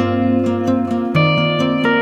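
Background music: plucked-string instrumental, guitar-like, with a steady pulse of notes.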